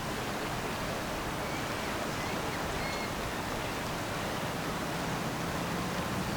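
Steady rushing hiss of wind and river water, with a few faint short chirps. Near the end a low, steady hum comes in: the engine of the passing lake freighter.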